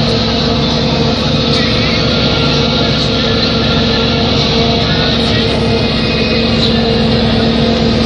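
New Holland FX450 self-propelled forage harvester running under load, chopping corn and blowing silage through its spout into a trailer: a steady machine drone with a constant hum.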